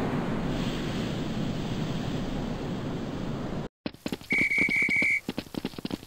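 A steady rushing noise that cuts off suddenly, then a pea whistle blown in a short trill of about four pulses, over a quick patter of running footsteps.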